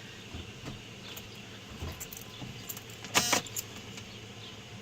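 Car keys jingling briefly about three seconds in, with a few small clicks over low background hiss, as the ignition key goes in just before the engine is started.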